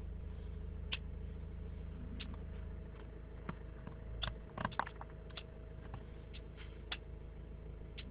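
A car engine running steadily, heard from inside the cabin, with scattered light taps of raindrops hitting the windscreen and roof, a cluster of them about four and a half seconds in.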